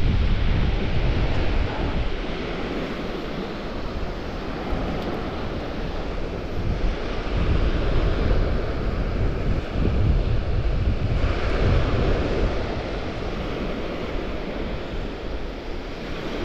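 Wind buffeting the microphone in gusts over a steady wash of surf on the beach. The gusts are strongest near the start and again around the middle.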